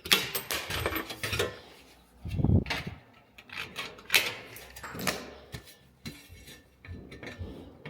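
Sheet metal being cut with hand tin snips: a series of irregular metallic snips and clinks as the corners are cut off a fabricated duct piece.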